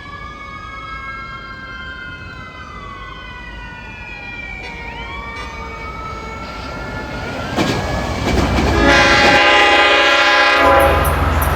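A departing Long Island Rail Road train led by a DM30AC diesel locomotive: whining tones slide slowly down and back up, then the horn sounds for about two seconds starting some nine seconds in, followed by a growing low rumble of the engine.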